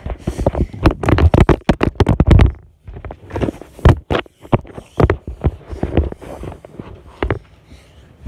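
A rapid run of close, loud knocks and scrapes, thickest in the first two and a half seconds, then scattered knocks for the rest.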